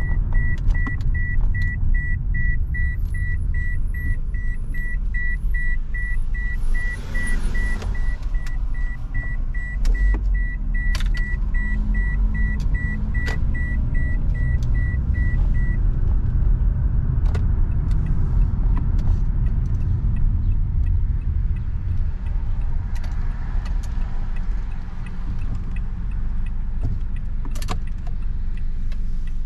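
Car driving, heard from inside the cabin: a steady low road and engine rumble. A rapid, high-pitched electronic beep repeats several times a second and stops suddenly about halfway through, with occasional light clicks and rattles.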